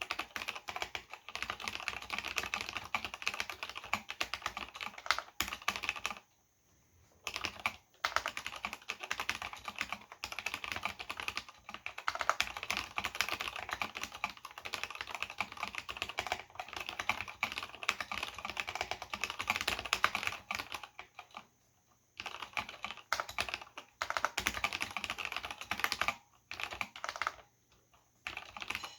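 Continuous fast typing on a Cherry G80-0499 mechanical keyboard with linear Cherry MX Black switches and ABS doubleshot keycaps: a dense run of key clacks that stops briefly three times.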